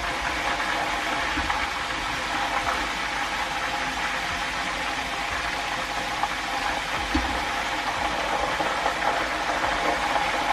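Breaded chicken pieces deep-frying in a pan of hot oil: a steady, dense sizzle of bubbling oil, with an occasional light click of tongs turning the pieces.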